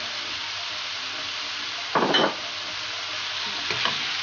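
Raw chicken pieces sizzling in a frying pan of softened leek and onion while a wooden spatula stirs and spreads them. A brief louder burst comes about two seconds in, and a smaller one near the end.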